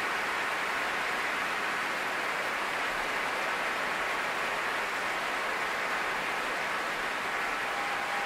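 Large concert-hall audience applauding steadily: a standing ovation of thousands of hands clapping together.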